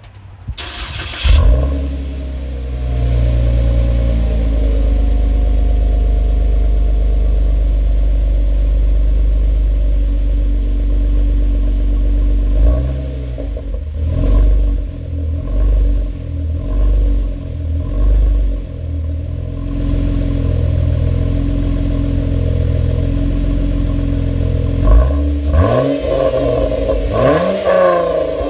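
Exhaust note of a 2012 Jeep Wrangler JK's 3.6-litre V6 through a Thrush welded muffler, with the catalytic converters still in place, heard at the tailpipe. The engine fires up about a second in and settles to a steady idle. It is blipped several times in quick succession around the middle, idles again, and is revved higher twice near the end.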